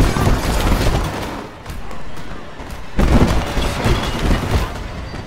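Action-film fight sound effects: a dense run of blows, thuds and scuffling, with a heavy sudden hit about three seconds in.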